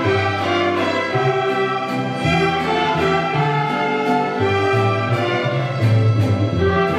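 Mariachi ensemble playing, with bowed violins carrying long held melody notes over changing bass notes.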